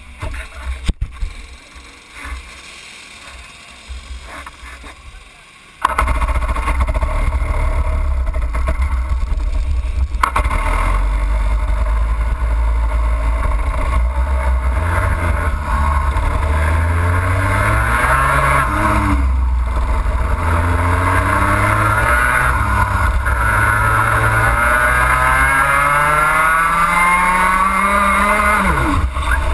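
Racing kart's two-stroke engine, heard close from the kart itself: it comes in suddenly about six seconds in, runs low for a few seconds, then revs out through repeated rising sweeps in pitch, each dropping back, with a sharp fall in pitch near the end. Before it starts there are only a few scattered knocks.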